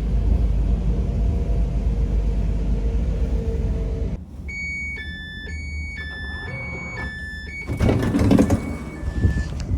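Electric passenger train running, a steady low rumble with a faint motor hum. After a sudden cut about four seconds in, a run of electronic beeps alternating between two pitches lasts about three seconds, followed by a short loud rush near the end.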